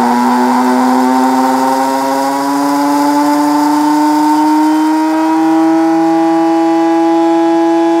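Cuisinart DGB-400's built-in coffee grinder running, grinding whole coffee beans: a loud, steady motor whine that rises slowly in pitch.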